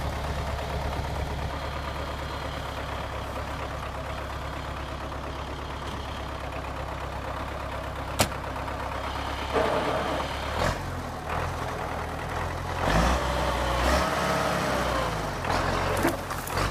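MTZ-82 tractor's four-cylinder diesel engine running steadily. About two-thirds of the way in it starts working harder, its pitch rising and falling, with a few knocks along the way.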